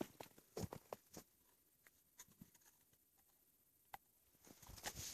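Faint, scattered crunching clicks as a dog gnaws at snow clumped in the fur of its paw, mostly in the first second, then a soft rustle in the snow near the end.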